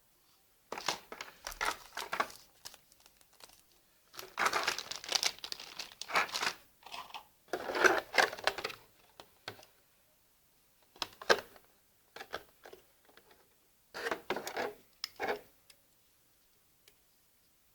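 Packaging crinkling and rustling as it is handled, in irregular bursts with short pauses: a long stretch in the first half and shorter bits later.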